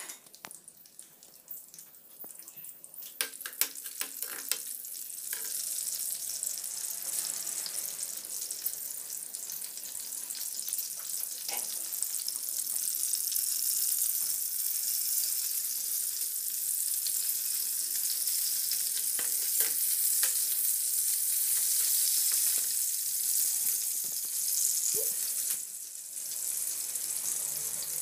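Hot oil sizzling in a frying pan as garlic, green chillies and dried red chillies fry for a dal tempering. The sizzle builds over the first few seconds and then holds steady, with a few sharp clicks and pops from the pan and the spatula stirring.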